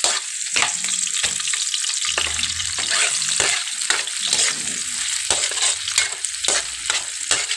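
Garlic and onion sautéing in hot cooking oil in a pan: a steady sizzle, with many quick scrapes and knocks of a utensil stirring them.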